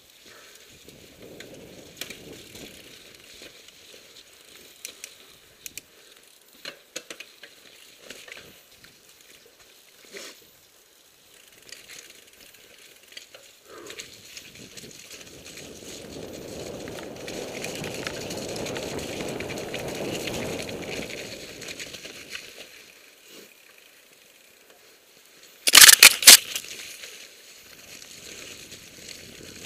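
Mountain bike descending a snowy forest trail, heard from a helmet camera: the bike rattling and its tyres crunching over snow and dirt, with scattered knocks and clicks. A louder rushing stretch swells and fades midway, and a cluster of very loud sharp knocks comes near the end.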